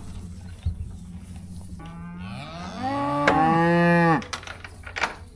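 One long moo from cattle, starting about two seconds in, rising in pitch and then held for about two seconds before cutting off. A sharp click falls partway through, and a low steady rumble runs underneath.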